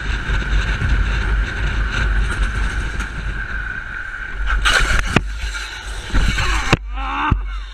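Wind rushing over the camera microphone on a moving sport motorcycle, with a steady whine from the bike. About five seconds in the bike crashes: a burst of loud noise and a sharp hit, then more loud noise as the rider goes down, which cuts off suddenly near the end.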